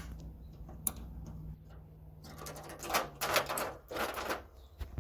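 Small fingerprint padlock being handled and fitted, with a sharp click about a second in and a cluster of clicks and rattles near the end. A steady low hum runs underneath and stops before the end.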